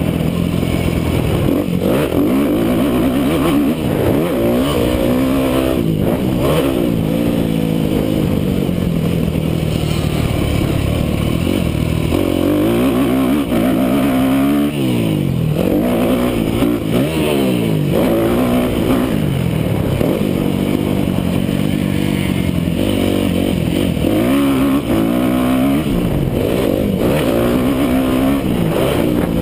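Yamaha motocross bike's engine, recorded on board, revving up and backing off over and over as the bike is ridden hard around a dirt track.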